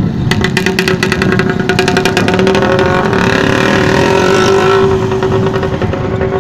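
Road traffic: motor vehicles running and passing close by, with a rapid rattle from a small engine and a steady engine hum.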